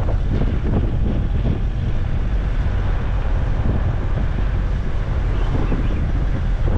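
Steady low rumble of a car on the road, with wind buffeting the microphone.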